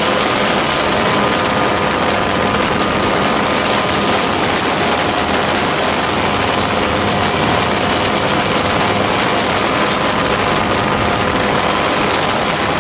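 A MiniMax ultralight's Hirth F33 single-cylinder two-stroke engine and propeller running steadily in flight, under a heavy rush of air. Pitch and level hold even throughout.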